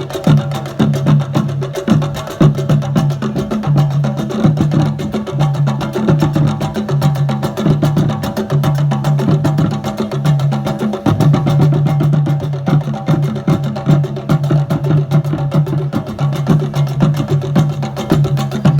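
Music with a steady, fast percussion beat over a repeating bass pattern.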